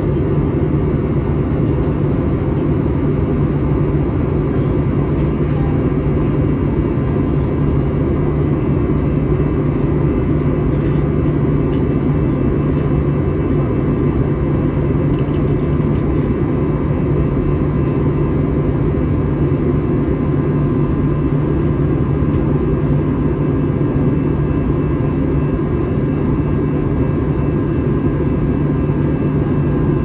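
Steady drone of a passenger airliner heard from inside the cabin in flight: engine and airflow noise with a strong low hum, unchanging throughout.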